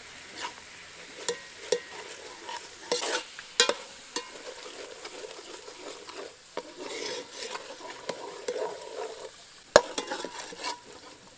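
Metal ladle stirring coconut-milk curry in an aluminium pot, scraping and clinking against the pot's sides, with one sharp knock near the end.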